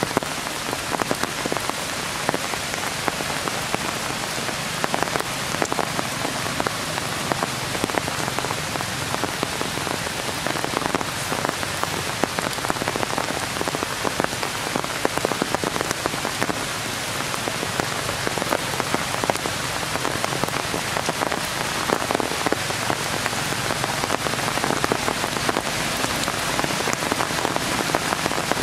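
Steady rain falling on tree foliage, an even hiss dotted with many close raindrop ticks.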